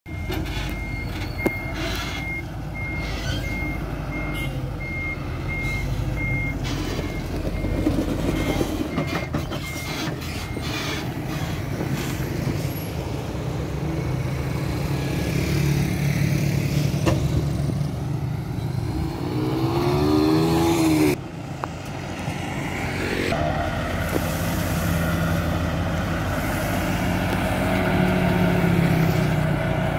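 Hino Profia dump truck's F20C diesel engine running while its reversing beeper beeps steadily for the first ten seconds or so as it backs onto the gravel. Later the engine revs up with a rising pitch and cuts off sharply, then runs on steadily as the bed begins to tip.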